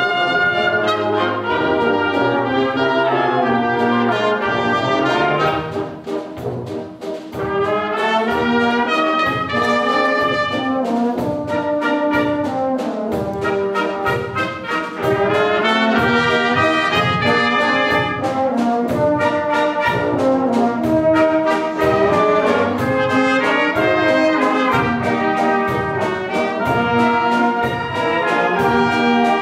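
Concert wind band of brass, clarinets and drums playing a tune, with a steady beat in the bass. The band drops briefly softer about six seconds in.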